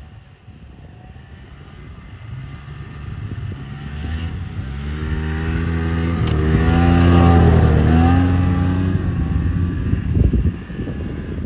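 A motor vehicle's engine passing close by: it grows louder over several seconds, is loudest about seven seconds in, then drops in pitch and fades as it moves away.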